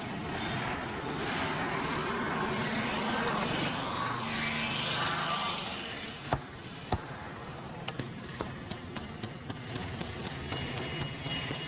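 Sharp hand slaps or taps on the body, first two single ones, then a fast regular run of about three or four a second, typical of a barber's rhythmic tapping massage. Before them there is steady street traffic noise.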